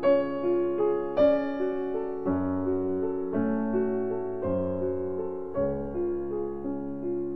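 Slow piano music, new notes and bass chords coming in about once a second.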